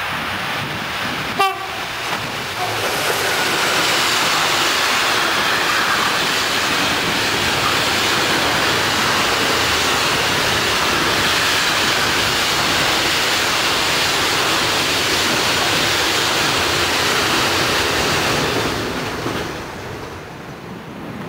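An electric locomotive hauling a freight train of tank containers passes at speed. There is a brief horn toot about a second and a half in, then a loud, steady rush of wheels on rails that dies away near the end.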